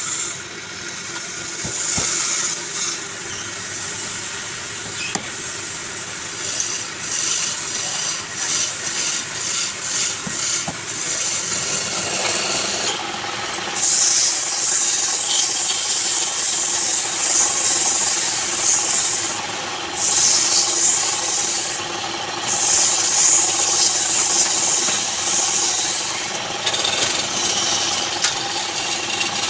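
Wood lathe running while a turning tool works the spinning wood, giving a continuous high scraping hiss that stops briefly a few times. A steady motor tone comes in about halfway through.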